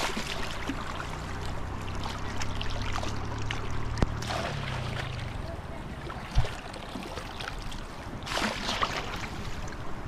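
Shallow floodwater sloshing and splashing as a woven bamboo basket is dipped and swept through grassy water, with a louder splash near the end. Two short sharp knocks come in the middle.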